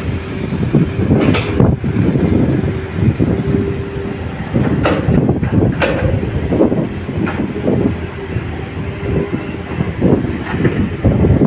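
Light diesel dump truck loaded with soil pulling away and driving along a rough dirt haul road: a loud, uneven engine rumble, with a few sharp clanks from the body as it rolls.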